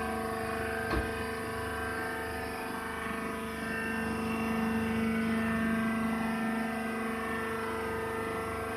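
Wood shaving baler press running: a steady mechanical hum with a whine, swelling slightly in the middle, and a single short knock about a second in.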